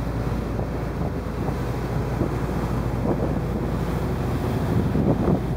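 Wind buffeting the microphone over the rush of water churned up alongside a party boat running at sea, with the boat's engine droning steadily underneath.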